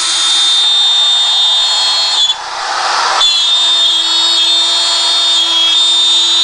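Electric power tools cutting fiberboard, their motors running with a steady high whine. A DeWalt drill bores holes in a fiberboard disc, then a wood router runs over a fiberboard sheet. About two seconds in, the whine gives way to a rougher stretch of about a second before the steady whine returns.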